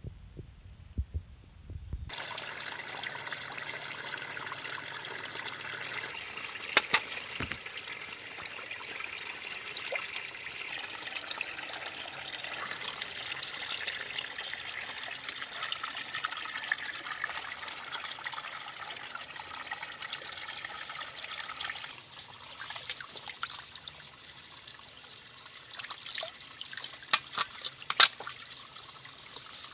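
Water trickling and running steadily, as from a forest stream, with a few sharp clicks near the end.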